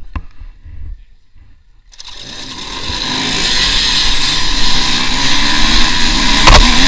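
Dirt bike engines start up abruptly about two seconds in, and the noise builds quickly as the rider's bike accelerates away across rough grass with other dirt bikes running close by. There is a sharp knock near the end.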